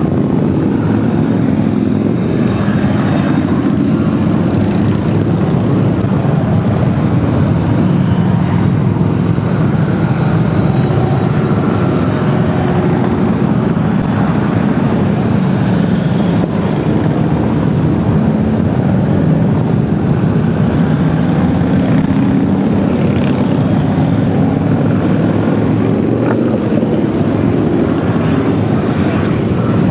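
Steady, continuous rumble of a long procession of cruiser and touring motorcycles riding past in a column, many engines blending into one drone.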